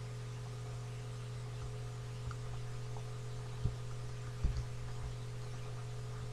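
Steady low electrical hum with faint hiss, broken by two soft knocks a little past halfway, about a second apart.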